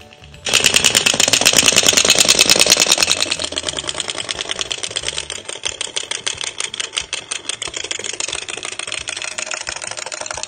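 Wind-up chattering teeth toy clattering on a tabletop, its clockwork snapping the plastic jaws open and shut in a rapid, even run of clacks. It is loudest for the first few seconds, then goes on a little softer until it stops suddenly near the end.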